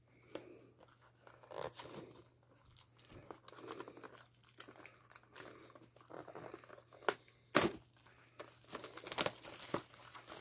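Clear plastic shrink-wrap being torn and crinkled off a small cardboard trading-card box. It crackles irregularly throughout, with a few sharper snaps about two-thirds of the way in.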